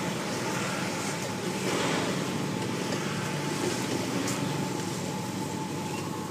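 Steady outdoor background noise of road traffic, with no single sound standing out.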